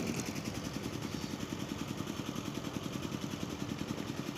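A small engine running steadily at an even, idle-like speed, with a fast regular pulse.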